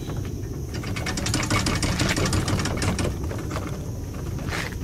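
Plastic kayak hull rolling back off the car roof over a homemade PVC roller, rattling as a fast run of clicks for about two and a half seconds.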